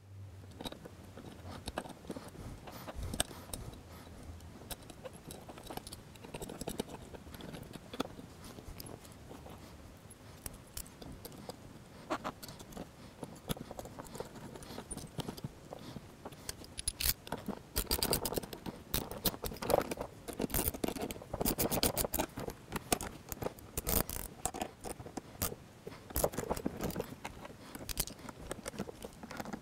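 Small metal hardware for a motorcycle backrest bracket being handled and fitted by hand, with light clinks and scrapes. From about halfway through come short runs of rapid clicking as the bolts are tightened with a ratchet wrench.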